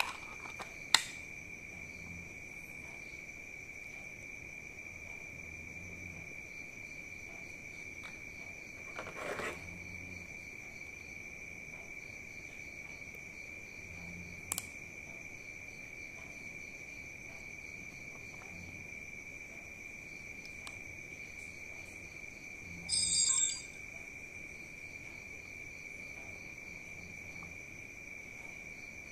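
Crickets chirping steadily in the background, with handling sounds from unpacking: a sharp click about a second in, a short rustle of plastic packaging around nine seconds in, a small click at about fourteen seconds, and a brief high-pitched sound a little after twenty-three seconds.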